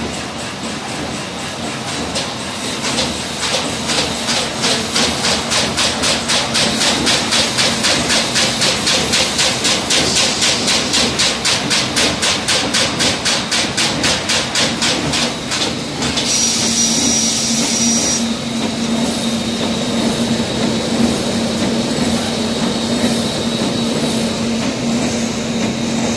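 Pillow-type flow-wrapping and shrink-film packing machine running, with a rhythmic mechanical clatter. About two-thirds through, a short loud hiss with a high whistle cuts in, then gives way to a steadier hum.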